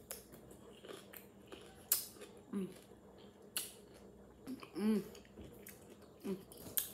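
Crunchy bites and chewing of a pickle, a run of short crackles with the loudest about two seconds in, broken by a few brief vocal murmurs of reaction to its sour, hot taste.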